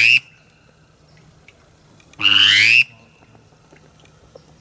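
A duck call blown in a loud, rising squeal about half a second long, two seconds in. The end of an identical squeal is heard right at the start.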